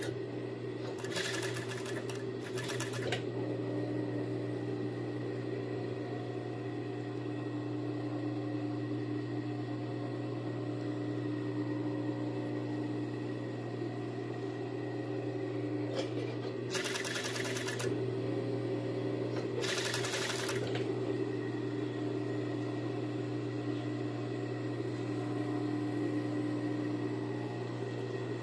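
Industrial sewing machine with a tape-binding attachment running steadily, stitching a fabric binding strip onto swimsuit fabric. Brief hissing noises come twice, about a second in and again past the halfway point.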